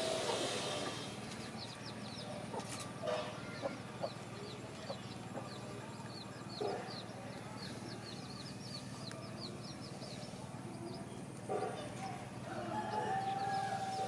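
Chickens clucking now and then, with a longer rooster crow near the end, over a run of quick high chirps from small birds.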